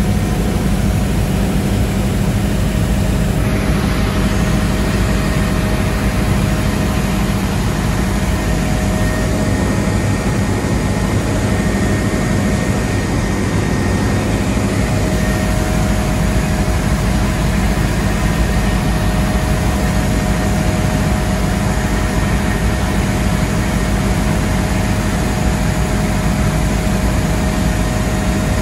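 Helicopter in flight heard from inside the cabin: a steady, loud drone of engine and rotor, with a few faint steady whining tones over it.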